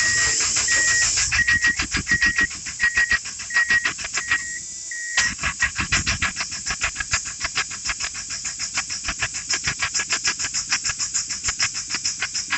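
1987 Chrysler Conquest's four-cylinder engine turning over on the starter with its new fuel pump fitted, in an even chugging rhythm of about six or seven pulses a second. It stops briefly about four and a half seconds in, then cranks again. A high beep repeats about twice a second until the break.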